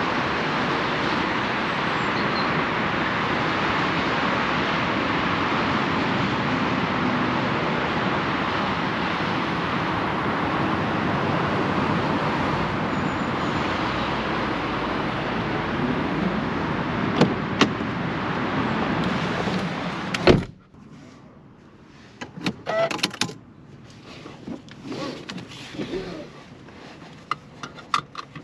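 Steady rushing noise of outdoor traffic, cut off about twenty seconds in by a car door slamming shut. After that, inside the quiet cabin, there are scattered small clicks and knocks.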